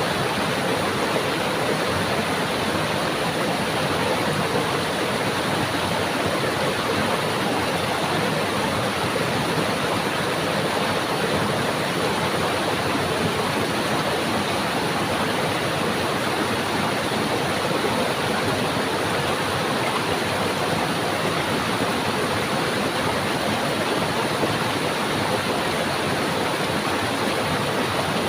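Stream water rushing and babbling in a steady, even wash of noise, unchanging throughout.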